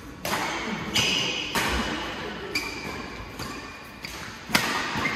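Badminton rackets hitting a shuttlecock in a doubles rally, about six sharp hits roughly a second apart, each ringing on in the echo of a large metal-walled hall. A few brief high shoe squeaks on the court mat come between the hits.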